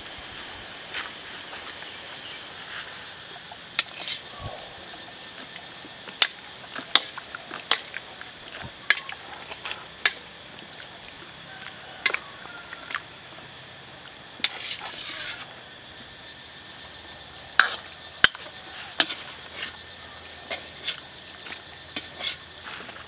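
Wood fire in a small stove crackling under a wok of simmering pork lung and offal: sharp, irregular pops over a steady hiss.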